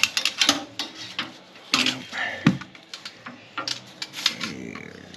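Metal tools and fittings clicking and clinking in short, irregular bursts as hands work around a refrigerator compressor and its copper refrigerant lines.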